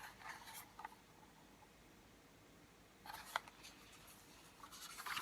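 Soft paper rustling with a light click about three seconds in: a picture book's page being handled and turned.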